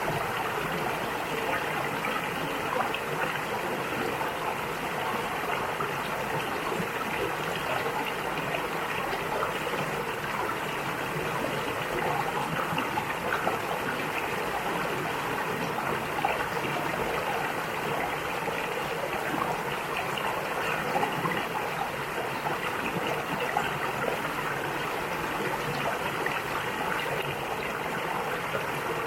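Mountain valley stream running steadily over rocks, a continuous rush of water dotted with small splashes and gurgles.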